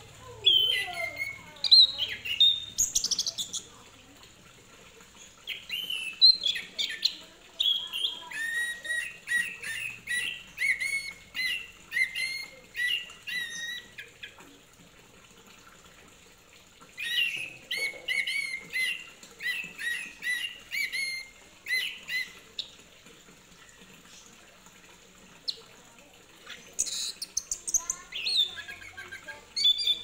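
Chestnut-capped thrush (anis kembang) singing in four bouts of rapid, varied chirps and whistles, with pauses of a few seconds between bouts.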